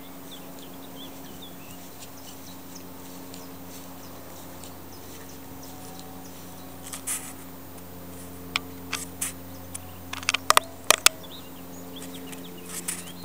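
A steady low hum with faint high chirps in the first few seconds. From about seven seconds in comes a run of sharp clicks and taps, the loudest a cluster around ten to eleven seconds in and another just before the end.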